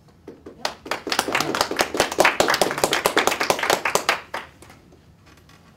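Small audience applauding: a few scattered claps, then steady clapping for about three seconds that thins out and dies away.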